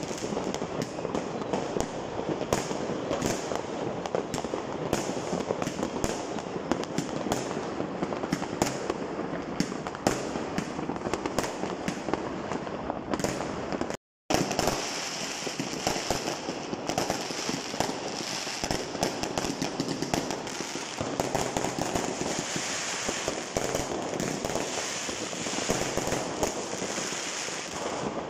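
Fireworks going off in rapid succession: a dense, continuous crackle of many small bangs and pops. About halfway through the sound drops out completely for a moment, then the crackling resumes.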